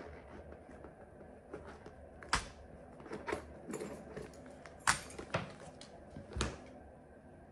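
Items being taken out of a handbag and put down: a series of sharp clicks and knocks, the loudest a little over two seconds in and about five seconds in, with light rustling between them.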